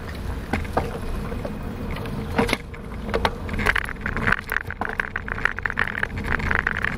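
Wind on the microphone and tyre rumble of a moving bicycle, with scattered clicks and knocks from bumps. About three and a half seconds in, a dense rattle sets in as the bike rolls onto brick pavement.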